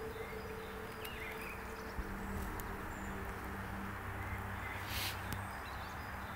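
Quiet woodland ambience: a steady low hum with small handling clicks and a few faint chirps, and a short hiss about five seconds in.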